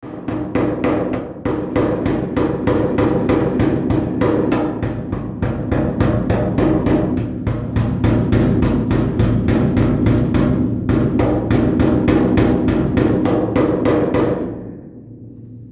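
Ball-peen hammer tapping rapidly on the sheet-steel trunk lid, several light blows a second, with the thin panel ringing under them. The blows are dishing the rust-thinned metal around pinholes into a crater, and the weak steel breaks through into larger holes. The tapping fades out about a second before the end.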